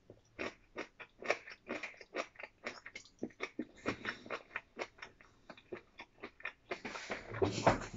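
A person chewing food, a steady run of short mouth clicks about three a second, with a louder, longer noisy stretch near the end.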